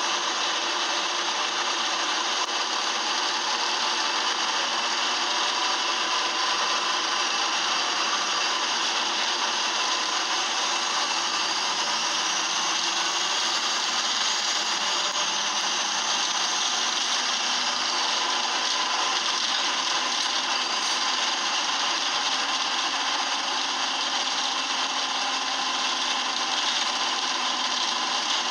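Optare Solo bus engine running with its noisy fault, heard from inside the passenger saloon as a steady, loud, scraping mechanical noise with no let-up.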